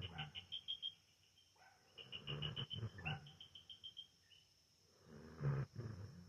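Dog snoring in its sleep: three rasping breaths with quiet gaps between them, each carrying a high squeaky whistle that pulses quickly.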